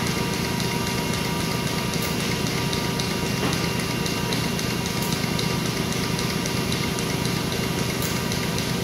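Presstek Dimension 225 computer-to-plate unit running as a plate is carried through its roller transport: a steady mechanical hum with several even whine tones, and a faint click about every three seconds.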